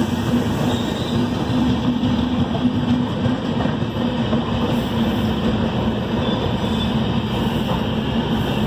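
Two passenger trains running side by side on parallel tracks, heard from aboard one of them: a steady, loud running rumble of wheels on rails, with a constant low hum underneath.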